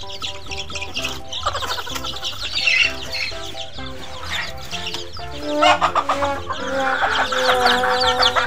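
Chickens clucking as they peck at scattered grain, with background music playing steadily underneath. The clucking grows louder a little past halfway.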